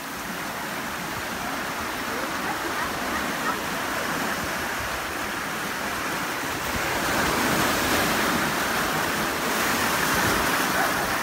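Sea surf surging and breaking into a narrow rock gully, a steady rush of foaming water that swells louder about two-thirds of the way through.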